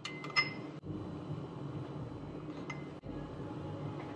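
Metal spoon clinking against a small ceramic bowl as sauce is measured out: a quick few ringing clinks at the start and one more about two and a half seconds in.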